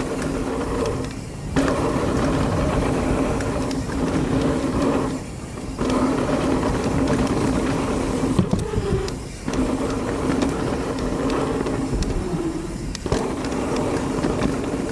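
Mountain bike rolling fast down a dirt jump trail: steady rumble of tyres on dirt and wind on the microphone, with a steady buzzing hum. The sound dips briefly four times, about every four seconds.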